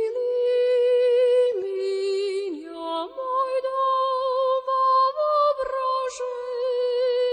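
Background music: a slow, unaccompanied melody sung on long held notes with vibrato by a lone female voice, moving step by step between a few pitches.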